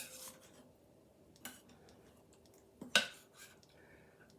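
Serving utensil clinking against the crock pot and dishes while food is dished out: a few sharp clinks, the loudest about three seconds in.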